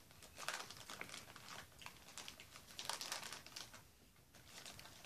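Irregular light clicks and crinkling rustles as small plastic Lego minifigure parts are handled and pressed together.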